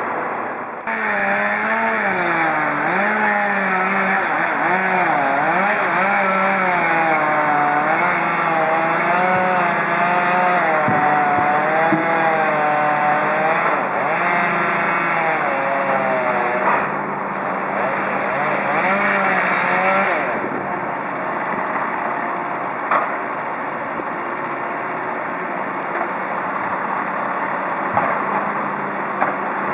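Chainsaw running, its engine note rising and falling for about twenty seconds, then running steadier and a little quieter.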